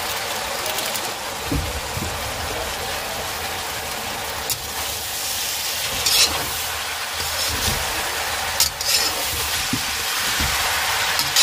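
Noodles sizzling steadily in a hot steel wok, with a metal spatula scraping and tossing them a few times.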